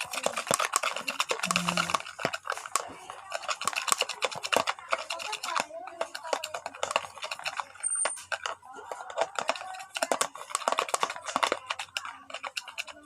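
Sticky slime being stirred and kneaded in a bowl: a dense, irregular run of wet clicks and crackles.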